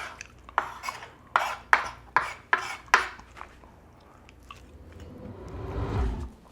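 A small kitchen knife scrapes and cuts along chicken drumstick bones, trimming them into lollipops, in about six quick strokes over the first three seconds. Near the end a low rushing sound swells up and stops.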